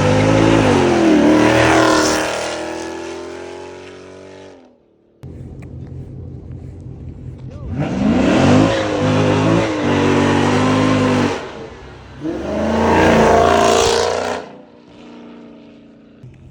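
Performance car exhaust being revved from idle, three rev bursts with the engine settling back to a low idle between them.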